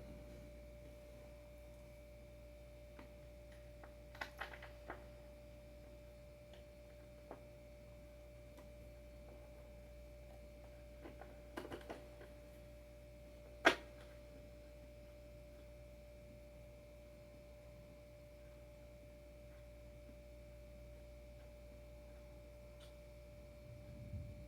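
A faint steady hum holding one clear tone, with a few scattered light clicks and taps of small parts being handled, the sharpest about fourteen seconds in.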